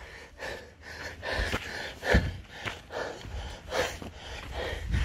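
A hiker breathing hard and fast while climbing a steep trail, in a quick run of loud, gasping breaths.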